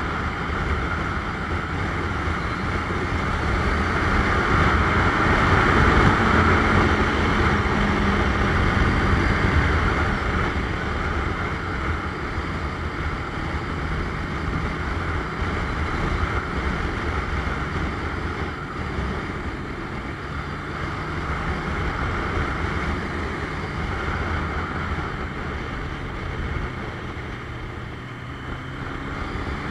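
1985 Suzuki GS700ES motorcycle's inline-four engine running at road speed, largely covered by wind rush on the microphone. A faint engine note drifts up and down in pitch.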